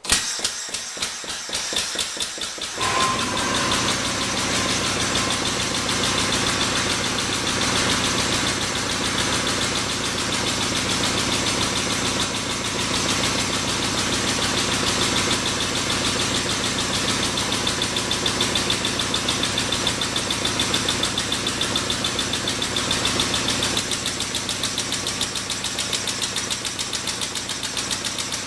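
Air-powered hydraulic pump running with a fast, even pulse as it drives an 8-ton hydraulic ram pushing a keyway broach through a steel roller die. It starts abruptly and grows fuller about three seconds in.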